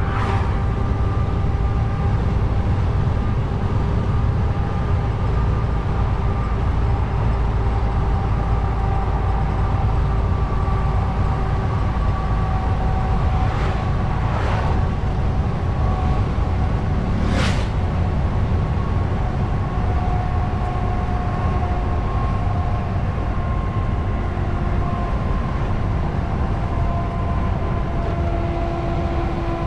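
DAF truck's diesel engine and tyres heard inside the cab while driving: a steady low drone with a faint whine that drifts slightly in pitch. Around the middle, oncoming vehicles pass in a few brief whooshes, the last one the loudest.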